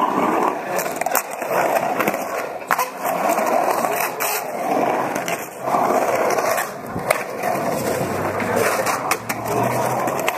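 Skateboard wheels rolling on the concrete of an empty pool bowl. The rolling swells and fades every couple of seconds as the skater carves back and forth, with a few sharp clicks along the way.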